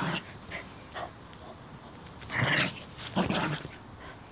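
A small dog growling and yelping in play with a toy in its mouth: three short bursts, one at the start and two close together past the middle.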